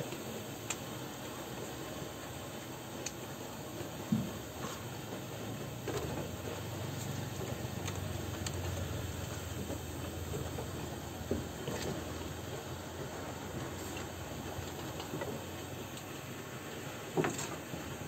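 Steady low hiss with scattered light taps and knocks as goat kids jostle and suckle at a milk bottle on a wooden floor. A louder knock comes about four seconds in and another near the end.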